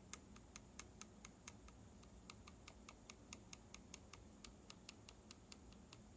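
Faint, sharp ticks, about five a second, from lightly tapping keys fitted with Zilent silent tactile mechanical switches built in Aliaz housings. The slight tick is an unwanted noise, which the builder thinks comes from play or looseness in the switch stem.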